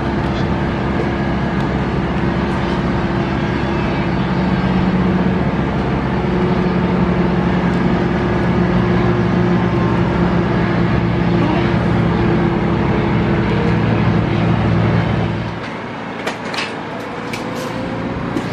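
Pit bike engine idling steadily, cutting off abruptly about fifteen seconds in. It is followed by a quieter stretch with a few sharp clicks near the end.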